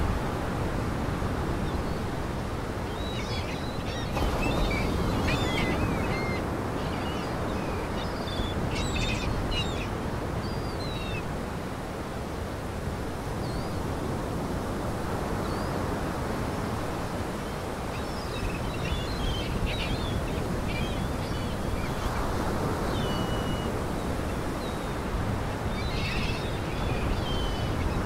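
Waterbirds calling, short high wavering calls in two loose spells, over a steady rush of wind and lake waves.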